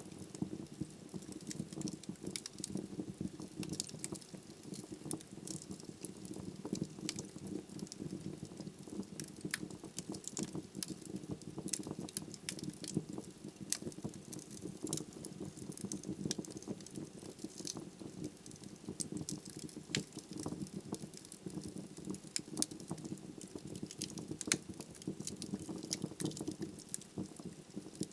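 Wood logs burning in a fireplace: a steady low rumble of flame under frequent, irregular sharp crackles and pops.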